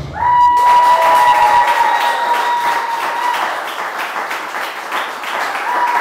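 Audience applauding after the music stops, with a long high-pitched held call from the crowd lasting about three seconds, and another starting near the end.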